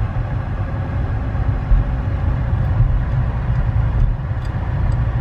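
Steady low rumble of a car's engine and road noise heard from inside the cabin.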